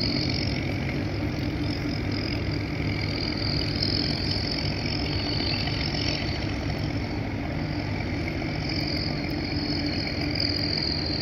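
Engines of a high-speed catamaran ferry running at low power as it begins to move off under its own power, a steady rough rumble.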